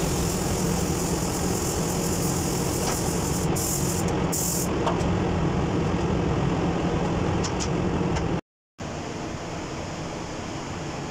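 Steady rush of air in an automotive paint spray booth, from the booth's airflow and a paint spray gun. The high hiss drops away about halfway through. The sound cuts out for a moment near the end and comes back quieter.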